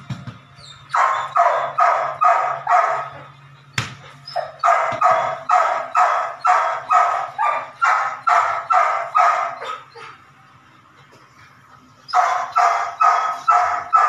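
Belgian Malinois puppy barking in quick runs of high yappy barks, about three a second, with pauses between the runs: excited barking from ball and prey drive while being teased with a ball toy. A single sharp knock sounds about four seconds in.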